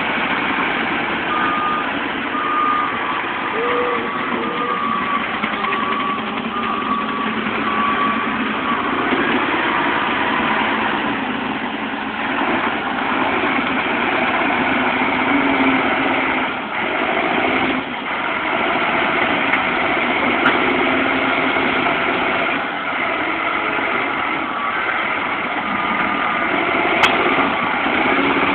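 Wheel loader's diesel engine running steadily as the machine digs, with its reversing alarm beeping about once a second through the first nine seconds or so. A single sharp click near the end.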